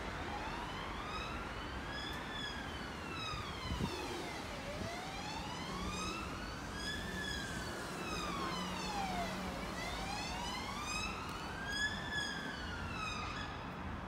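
An emergency vehicle's siren wailing, its pitch slowly rising and falling about once every five seconds, over steady background noise.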